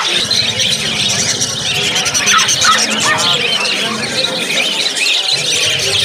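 Many caged small birds calling at once, a dense chatter of short rising and falling chirps, with people's voices underneath.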